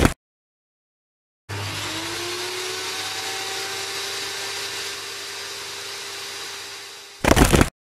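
Small electric motor of a toy tractor's mini circular-saw attachment spinning up with a rising whine after a second and a half of silence, then running with a steady whir that eases off slightly. A loud, harsh burst lasting about half a second comes near the end.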